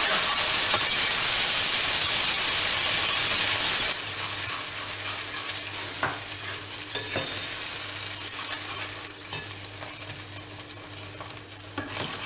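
Freshly added tomato and cashew puree sizzling in hot oil in an aluminium pan as it is stirred with a spoon. The loud sizzle drops away abruptly about four seconds in, leaving a quieter sizzle with occasional scrapes of the spoon.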